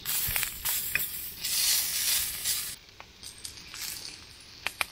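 Sausages sizzling in a non-stick frying pan, loudest around the middle, with a few light clicks of a fork against the pan as they are turned.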